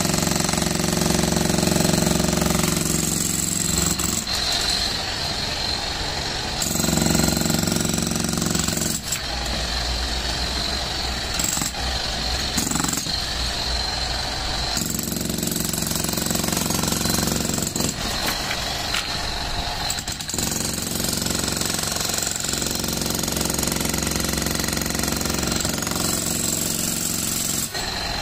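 Bosch GSH 11 E corded electric demolition hammer chiselling concrete, hammering continuously; its note shifts every few seconds as the chisel bites and the load changes.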